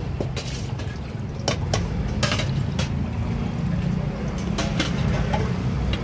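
A metal ladle or spoon clinks against stainless-steel mixing bowls several times, sharp separate knocks, over a steady low rumble of street traffic.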